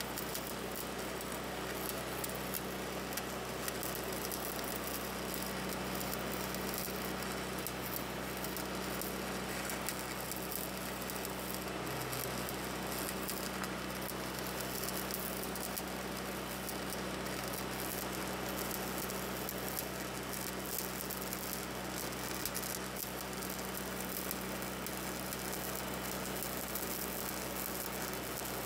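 Electric arc welding: a steady crackling hiss from the arc, with a low steady hum underneath.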